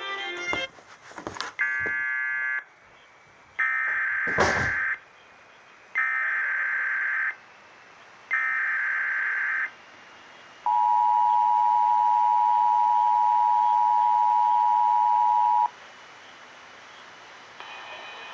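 Emergency Alert System activation: three blasts of digital SAME header data about a second apart, then the steady two-tone EAS attention signal for about five seconds. It signals that a warning message is about to be read.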